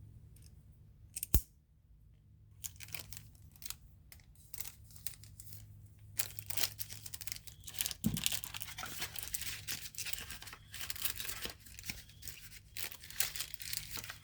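Paper or plastic packaging rustling, crinkling and tearing as it is handled, sparse at first and then dense and continuous from about six seconds in. A sharp click comes just over a second in.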